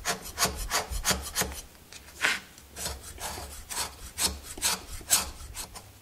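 Kitchen knife scraping shavings off a hard block of papelón (unrefined cane sugar) over a wooden cutting board, in quick, irregular strokes about three a second.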